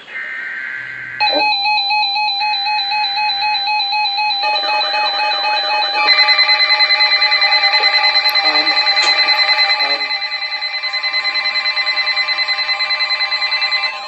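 Several NOAA weather radios going off together for a severe thunderstorm warning. Two short buzzy data bursts of the SAME header come first. Then the radios' warbling electronic alarm beeps join one after another into a loud overlapping chorus, and a steady alert tone joins near the end.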